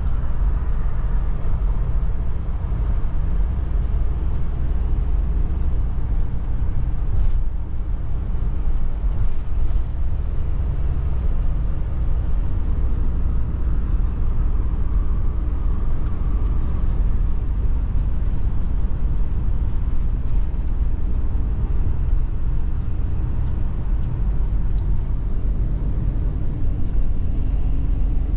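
Steady low engine and road rumble heard inside the cab of a 31-foot motorhome driving along a city street.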